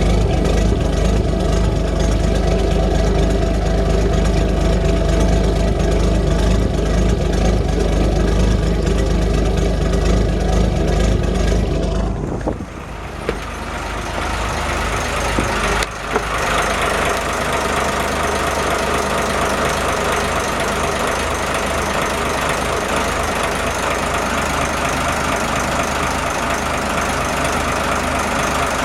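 Boat engine running steadily. About twelve seconds in the sound changes abruptly to a noisier, less low-heavy engine sound, with a short sharp click a few seconds later.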